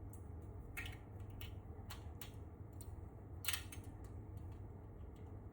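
Faint, irregular clicks and scratches of .041-inch safety wire being untwisted by hand, the sharpest click about three and a half seconds in, over a steady low hum.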